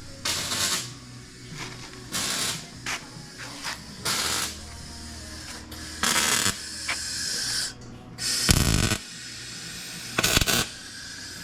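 Welder laying short stitch welds on thin Jeep body sheet metal: about eight crackling half-second bursts with pauses between, over a low steady hum. A short low rumble comes about three-quarters of the way through.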